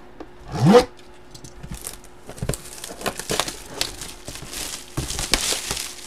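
Plastic shrink wrap being torn and peeled off a trading-card box, crinkling and crackling irregularly. A short rising sound comes about half a second in.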